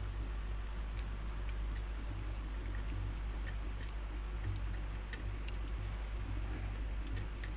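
Lock pick working the pins of a challenge lock during single-pin picking: faint, irregular little clicks and ticks of metal on the pins, over a steady low hum.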